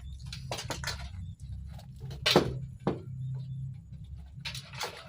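A handful of short knocks and clatters from handling things while bathing a cat, the loudest about two and a half seconds in, over a low steady hum.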